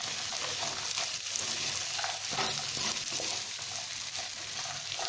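Diced carrots and peas sizzling in hot oil with fried onion in a pan while a slotted spatula stirs them, the steady sizzle broken by a few short scrapes of the spatula against the pan.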